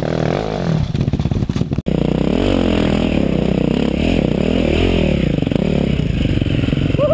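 Off-road motorcycle engine heard from the rider's own bike, revving up and down over a rough trail. The sound cuts out for an instant about two seconds in.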